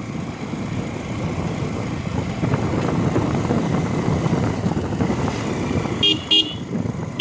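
Motorcycle running on the move, a steady rumble of engine and road and wind noise, with short horn beeps twice near the end.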